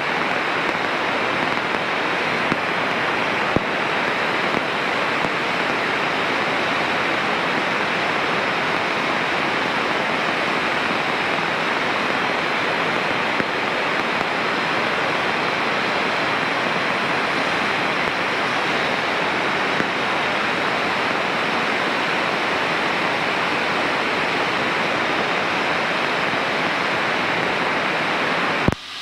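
Steady, even rushing noise inside a Cessna 152's cockpit in cruise flight. It drops out for a moment near the end.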